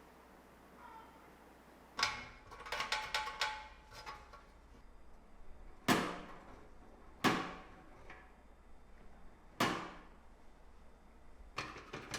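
Metal parts of a pressed-steel toy truck being handled: a short clattering rattle with ringing metal tones, then three sharp metal knocks a second or two apart, each ringing briefly, and a couple of small clicks near the end.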